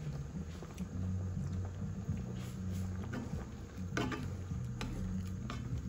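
Coconut-milk vegetable curry simmering in a pan with soft bubbling and popping over a low rumble. From about four seconds in, a wooden spatula stirs it, with a few clicks against the pan.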